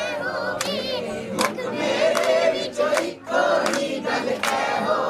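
A group of voices singing a devotional chant together, with a young girl's voice among them, and a few sharp percussive hits at irregular intervals.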